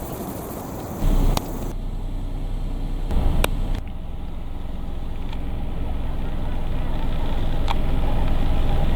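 A low rumble that grows steadily louder, with a few sharp clicks and two short louder thumps early on.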